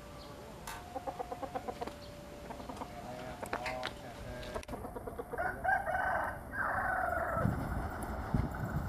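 Chickens clucking, with a quick run of clucks about a second in, and a rooster crowing in a long call a little after the middle.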